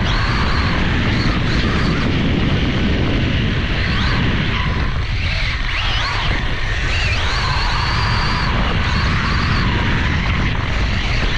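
Losi Promoto-MX 1/4-scale RC dirt bike's brushless electric motor whining, rising and falling in pitch as the throttle changes, heard from on board over a steady low rumble.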